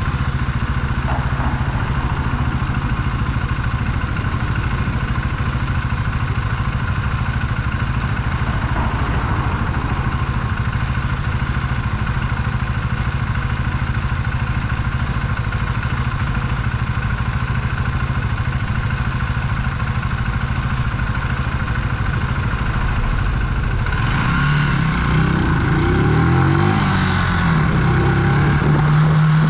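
Archive AM60 125cc café racer's single-cylinder engine idling steadily, then revving up and down near the end as the motorcycle pulls away.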